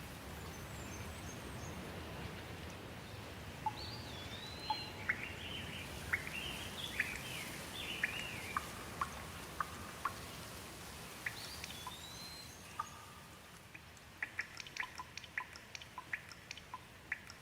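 Steady rain hiss with birds calling over it: whistled, sliding notes and chirps from about four seconds in, then a quick run of short chirps near the end as the rain noise eases.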